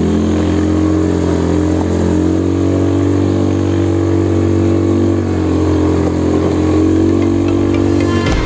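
Motorcycle engine running steadily while riding, its pitch dipping and picking up slightly a few times with the throttle.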